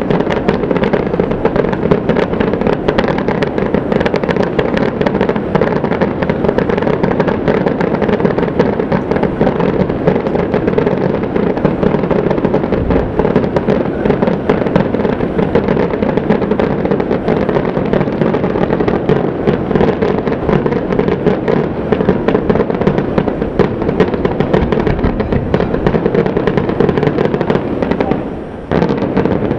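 Fireworks display: a dense, continuous barrage of bursts and crackling with no gaps, easing briefly near the end before going on.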